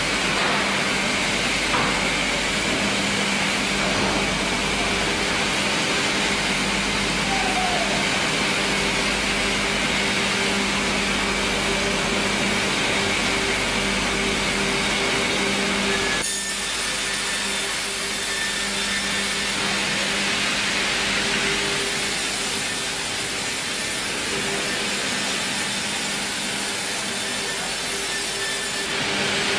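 FİMAKSAN band sawmill headrig running and sawing a log on its carriage: a loud, steady machine drone with a hum and a hissing saw noise. About halfway through the sound changes abruptly, the low hum dropping back and the high hiss growing brighter.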